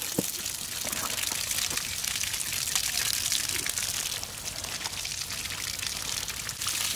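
Water poured and splashing over large fish on a slatted bamboo table as hands rub them clean: a steady splashing hiss with a few small knocks. It eases a little about four seconds in and picks up again near the end.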